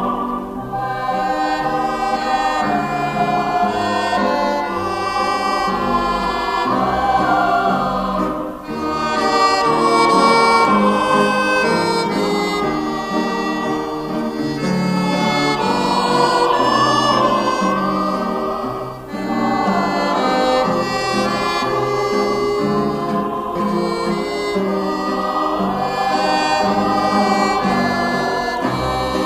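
Background music: a slow melody of long, wavering held notes over a chordal accompaniment, with brief breaks between phrases about nine and nineteen seconds in.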